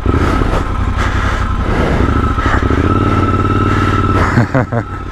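Triumph Scrambler 1200 XE's parallel-twin engine revving under load as the bike is ridden in mud, the revs rising about three seconds in; the bike can't move because the traction control keeps cutting in, which the rider says is killing him.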